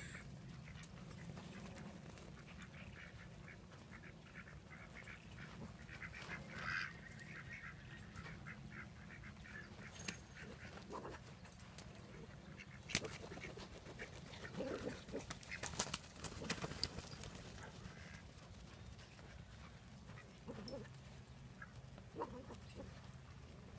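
Ducks quacking in short runs of rapid calls, with a few sharp clicks about halfway through.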